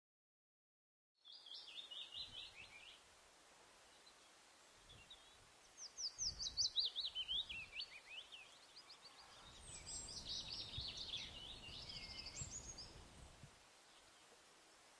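Sparrows chirping in quick bursts of short notes, starting after about a second of silence. The middle burst is a fast run of chirps falling in pitch. A faint steady hiss sits underneath.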